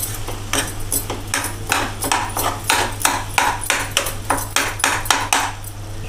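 Metal spoon stirring thick grated-carrot halwa in a metal pot, clinking and scraping against the pot about three times a second, stopping near the end.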